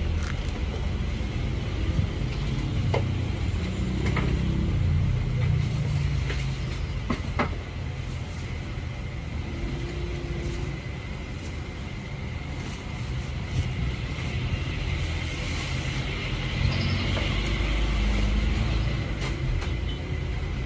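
A motorcycle helmet's packaging being handled: rustling and crinkling of plastic wrap, a cloth helmet bag and a cardboard box, with a few light knocks. A steady low background rumble runs underneath.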